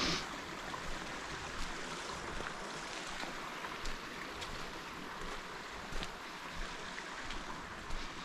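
Steady rushing outdoor noise, as of running water or wind through the trees, with faint footsteps on the trail every second or so.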